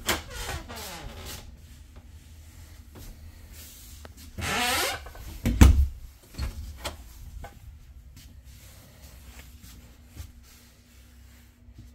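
A wooden interior door in a travel trailer being handled and swung open, with knocks and clicks, a rubbing scrape about four and a half seconds in and a heavy thump right after it.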